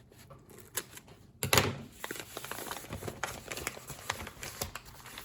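Plastic and paper packing crinkling and rustling as a wrapped orchid plant is handled and pulled from the box, a dense run of crackles with one louder rustle about one and a half seconds in.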